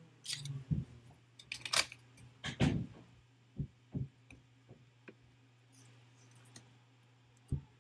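Hands handling laptop parts: a string of short clicks, taps and rustles, busiest in the first three seconds, then single taps near four seconds and near the end, over a steady low hum.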